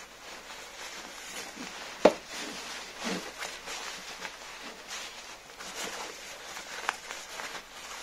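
Rustling and brushing of long shaggy faux fur and costume fabric handled by hands, with a sharp knock about two seconds in and a smaller click near the end.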